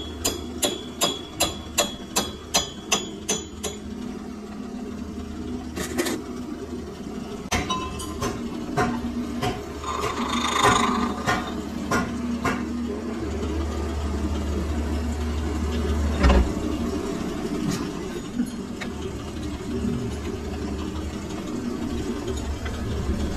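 Hammer blows on a steel workpiece held in a lathe's three-jaw chuck: about three ringing metal strikes a second, stopping about three and a half seconds in. After that come scattered metal clinks and knocks over a steady low hum.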